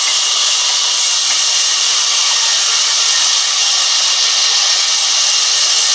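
Large sawmill band saw ripping lengthwise through a squared log, a loud steady hiss without a break.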